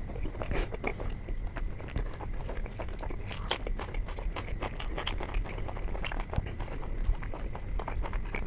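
Close-miked chewing and wet mouth clicks of someone eating soft Indian flatbread dipped in paneer butter masala gravy, irregular and continuous.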